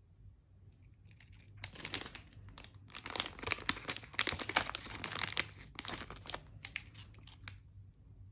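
Paper crinkling and tearing, a dense run of sharp crackles that starts over a second in and stops about a second before the end.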